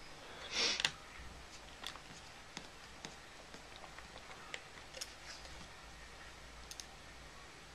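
Faint scattered clicks and taps of fingers on a white MacBook's plastic case as it is handled, with a short scraping rustle about half a second in.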